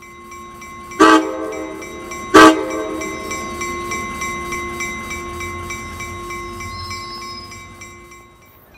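Railroad grade-crossing bell ringing steadily while a passenger locomotive's air horn gives two short, loud blasts about a second and a half apart; the sound fades out near the end.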